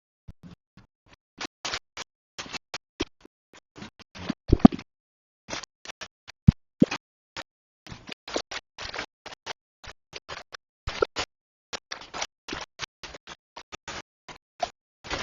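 Kitchen utensils knocking and scraping in an irregular run of short clicks, several a second, with a heavier knock about four and a half seconds in.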